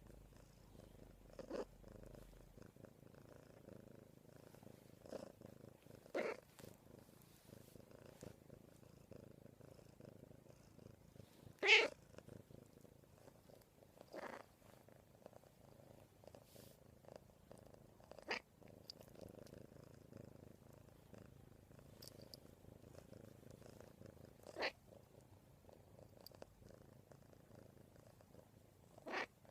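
Domestic cat purring steadily and contentedly, with a few brief knocks here and there, the loudest about twelve seconds in.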